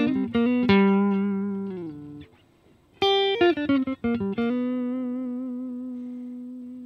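Electric guitar, a Fender Ultra HSS Stratocaster on its neck pickup, played clean through a UAFX Dream 65 amp pedal: a short phrase of picked blues notes, a brief pause, then another phrase ending on a long held note with vibrato that is stopped near the end.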